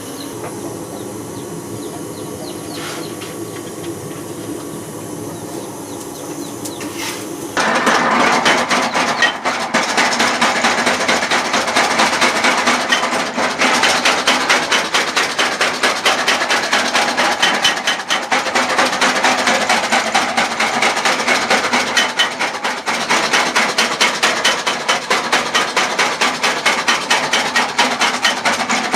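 Motor-driven blacksmith's power hammer: a steady machine hum, then, about seven and a half seconds in, a fast, even run of hammer blows on metal starts suddenly and keeps going.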